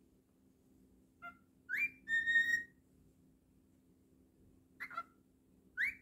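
Cockatiel whistling: a few short rising chirps, then one held whistle note about two seconds in, and more quick rising chirps near the end.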